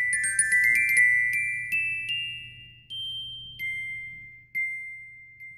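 Intro jingle of bright, bell-like mallet notes in a glockenspiel style: a quick run of overlapping ringing notes, then single notes spaced about a second apart, each ringing out and fading.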